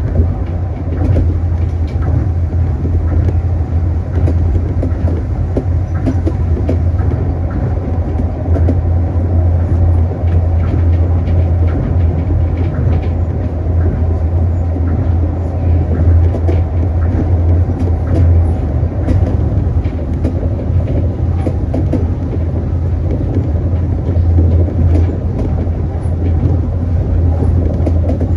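Tokyo Monorail train running along its elevated guideway beam, heard from inside the front of the car: a steady low hum and rumble with scattered light clicks and rattles.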